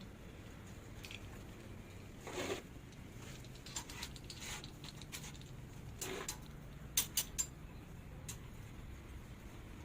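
Scattered light clicks, taps and scrapes of hand work on site, with three sharp clicks in quick succession a little past the middle, over a low steady hum.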